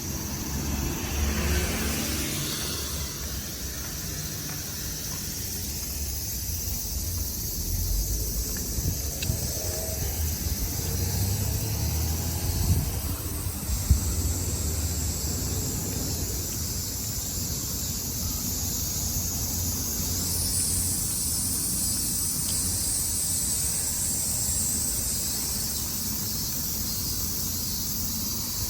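Strong typhoon wind buffeting the microphone: an uneven low rumble with a steady hiss over it.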